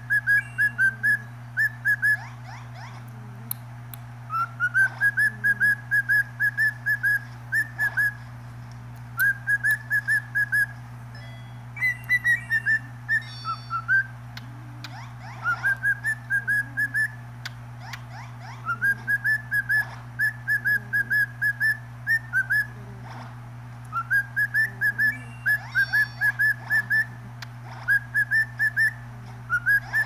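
Cockatiel whistling its song over and over: each phrase opens with a rising whistle and runs on as a string of short, clipped notes, recurring every few seconds over a steady low hum.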